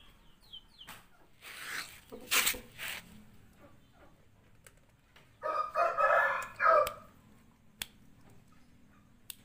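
A rooster crows once, a pitched call about a second and a half long, near the middle. Before it come a few short rustling noises, and high, quick peeps die away in the first second.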